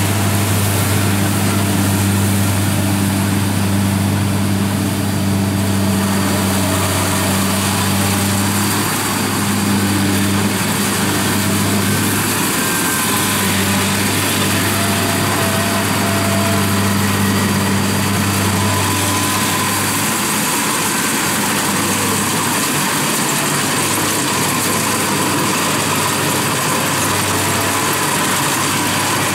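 Kubota DC-70 combine harvester running steadily as it cuts rice: a diesel engine drone with an even mechanical hiss over it. The low engine tone eases a little about two-thirds of the way through.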